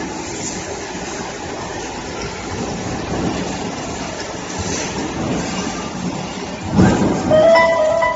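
An automatic metal-cutting band saw running with a steady mechanical rumble. A heavy clunk comes near the end, followed by a short high-pitched squeal.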